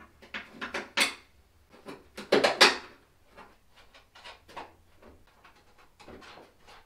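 Handling noise from a carbon fiber trunk lid and wing parts being moved on a cloth-covered bench: a string of knocks and clunks, with a louder scraping clatter about two and a half seconds in.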